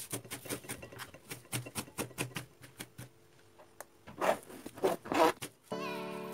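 Knife chopping fresh parsley on a cutting board: a run of quick, sharp strokes, then two louder, longer sounds about four and five seconds in. Background music comes in near the end.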